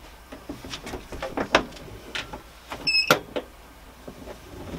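Scattered knocks and clicks of a power cord being handled and plugged back into a T-Zone vibration machine, then a short electronic beep about three seconds in as the machine gets power, followed at once by a sharp click.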